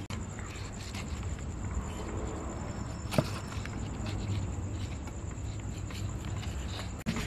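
Steady high-pitched trill of insects over a low rumble, with a single sharp click about three seconds in.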